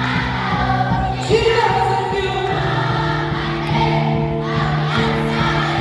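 Gospel music: a choir singing held notes over a band with a steady beat and bass.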